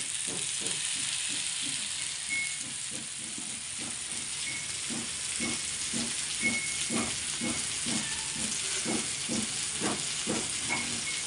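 Masala-marinated sand whiting (kilangan meen) shallow-frying in a little oil on a flat iron pan (tawa): a steady sizzling hiss with frequent small pops and crackles.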